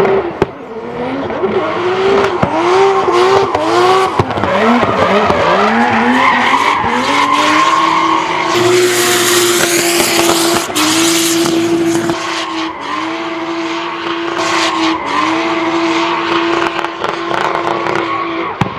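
Nissan S13 drift car with a 2JZ straight-six engine revving hard while sliding sideways, its tyres squealing and skidding. For the first several seconds the revs rise and fall again and again, then the engine holds a steady high rev for most of the rest, with a loud burst of tyre noise about nine seconds in.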